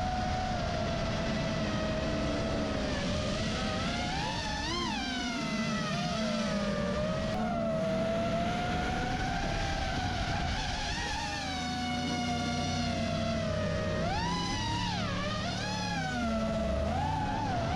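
FPV racing drone's motors whining steadily, the pitch swooping sharply up and down with throttle changes several times, with a lower engine drone underneath.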